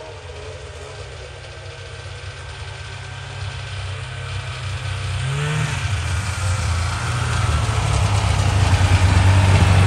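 Polaris Indy Trail snowmobile's two-stroke engine running, growing steadily louder as the sled approaches, with a brief rise in pitch about halfway through.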